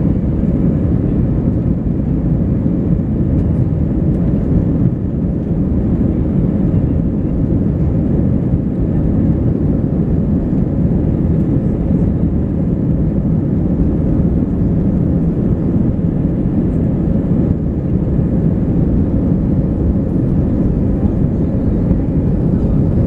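Cabin noise of an Airbus A319 taxiing: a steady low rumble of the idling jet engines and the wheels rolling over the taxiway.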